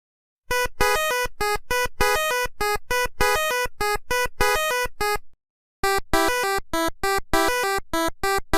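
Electronic synthesizer melody of quick, detached notes at changing pitches, played in two phrases with a short break about five seconds in.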